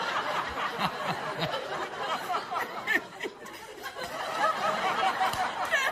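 Studio audience laughing at a joke, the laughter dipping a little around the middle of the stretch and swelling again.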